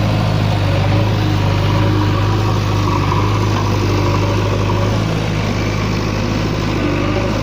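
Diesel engine of a JCB 3DX backhoe loader running steadily with a constant low hum.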